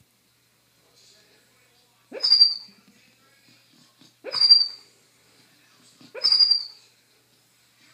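Beagle snoring: three loud snores about two seconds apart, each with a high whistling note.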